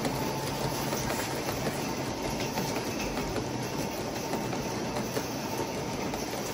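Large-scale model freight cars, tank cars and boxcars, rolling past on the layout's track: a steady rolling noise of metal wheels on rail with faint clicks over the rail joints.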